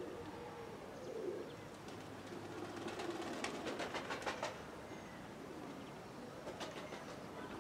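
Domestic pigeons cooing: low, wavering coos repeated on and off. A quick run of sharp clicks comes about three seconds in, with a few more near the end.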